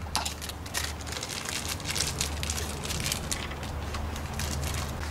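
Plastic fruit snack bag crinkling in quick irregular clicks as it is pushed into the neck of a plastic pop bottle, over a steady low hum.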